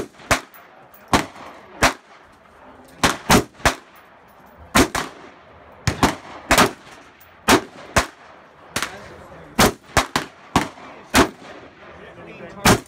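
Rifle shots on a range: an AR-15-style rifle fired from a bench among other shooters. About twenty sharp cracks come at irregular spacing, some loud and some fainter.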